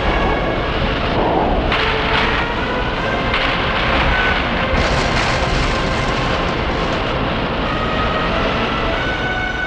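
Loud, steady rushing wind, the gale whipped up by the kaiju Titanosaurus fanning its tail fin, with faint steady tones under the noise.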